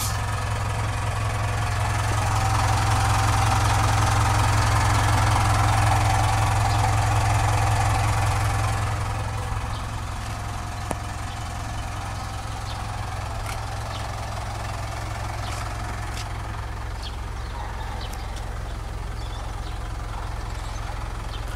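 2012 Mitsubishi Montero Sport's 2.5-litre turbodiesel engine idling steadily, heard from the rear of the vehicle. It grows louder for several seconds near the start, then eases to a quieter, even hum.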